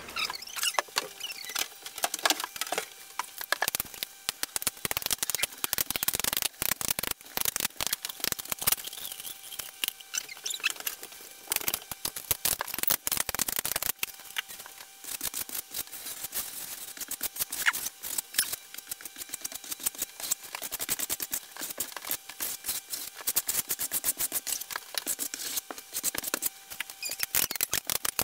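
Caulk gun clicking and squeaking as it pushes beads of construction adhesive onto a wall, then a notched trowel scraping across the wall spreading the adhesive in quick, irregular strokes.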